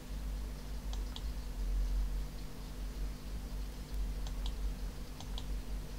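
Computer mouse button clicks: three quick double clicks, one about a second in and two near the end, over a steady low hum.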